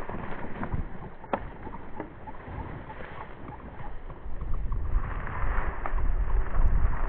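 Wind buffeting the microphone, stronger in the second half, over a rustling hiss with scattered small clicks and one sharp snap a little over a second in.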